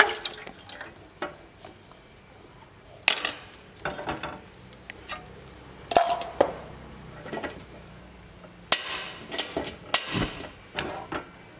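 Pots and kitchen utensils knocking and clinking: several separate sharp hits with quiet between them, bunched around four seconds in, six seconds in and again near the end.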